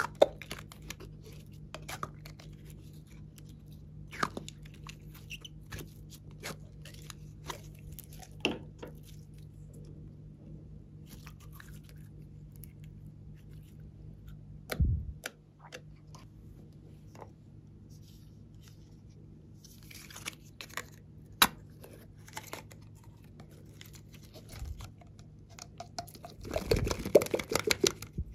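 Hands working glossy, glittery slime, squeezing it out of small plastic bottles and pressing it in a tray: scattered small sticky clicks and pops over a faint low hum, a single soft thud about halfway, and a dense burst of crackling squelches near the end.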